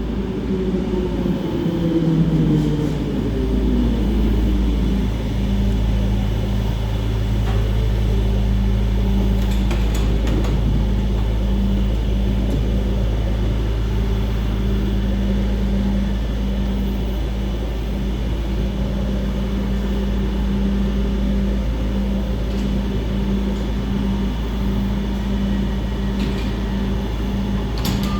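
Electric train's motors whining down in pitch over the first few seconds as it slows to a stop, then the steady hum of the standing train.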